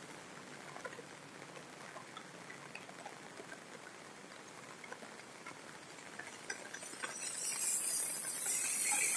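Rain falling on a wet street and paving: a faint, steady patter with scattered drips. From about seven seconds in a hiss swells up, the spray of a vehicle's tyres passing on the wet road.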